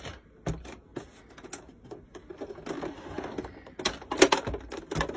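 Irregular clicks and rattles from a Singer sewing machine's parts being handled while it is threaded. The clicks are sparse at first and come thicker and louder in the second half.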